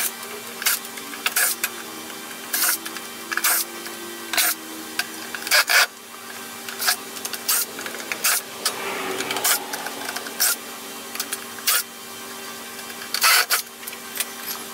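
Cordless drill-driver whirring in short runs as it backs screws out of a wooden base, with many sharp clicks and clinks from the driver and loose screws in between.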